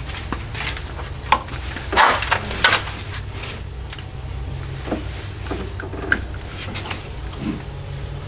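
Scattered knocks and clicks from hands and tools working on the old car's parts, loudest a couple of seconds in, over a steady low hum.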